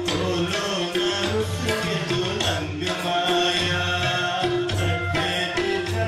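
A man singing a melody into a microphone, accompanied by tabla playing a steady rhythm.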